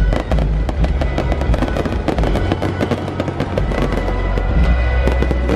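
Fireworks crackling in many rapid pops and snaps, over loud show music with heavy bass.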